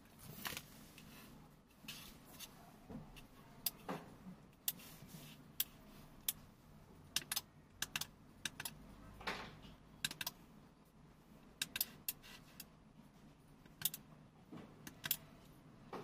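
Push buttons and relays of a Tuya four-channel smart relay module clicking as its channels are switched on and off by hand: a series of sharp, irregular clicks, some in quick pairs.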